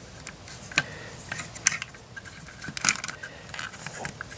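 Hard plastic LEGO pieces clicking and clattering as they are handled, with a few scattered sharp clicks, the strongest about three seconds in.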